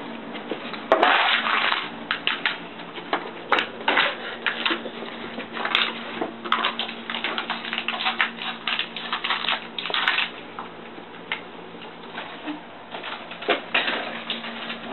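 Irregular scuffing and rustling as a dog rolls and wriggles on its back on a carpet, over a steady low hum.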